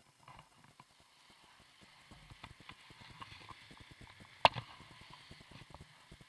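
Rapid small knocks and rattles from a body-worn action camera while its wearer slides downhill on snow, with a hiss of snow sliding that builds from about two seconds in. One much louder sharp knock about four and a half seconds in, as the camera lurches.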